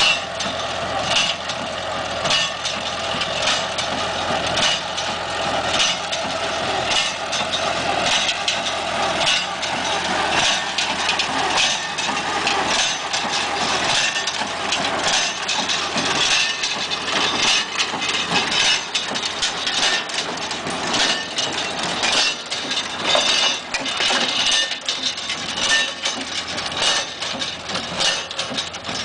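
A John Deere 1010 tractor's engine runs steadily while a Massey Ferguson #9 small square baler clanks over and over as it works. The clang is not normal for the model but is usual for this particular baler.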